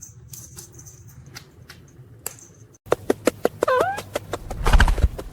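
Light clicks and taps, then after a brief break a parrot's short chirps with more sharp clicking, and a low thump near the end.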